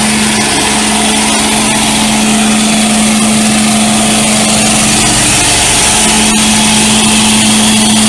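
Carpet-cleaning truckmount running: its 23.5-horsepower Kohler engine and vacuum blower make a loud, even drone with a steady hum.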